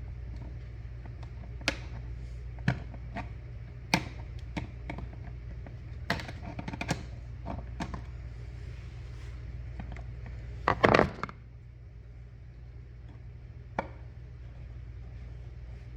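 Scattered small clicks and taps of hands working an electrical outlet, its mounting screws and plastic spacer tabs, with a brief louder rattle of clicks about eleven seconds in. A steady low hum runs underneath.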